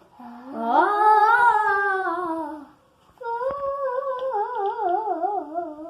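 A child's voice humming two long notes: the first rises and then falls, the second slides downward with a wavering pitch.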